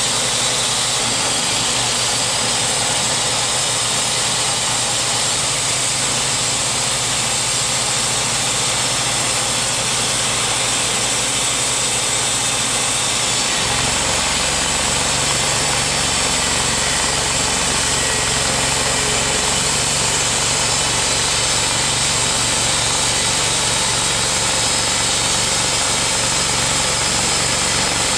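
Timberking B-20 portable bandsaw mill running with its blade turning. About halfway through, the blade enters a white oak log and the sound changes, a lower hum joining in as the engine takes the load of the cut.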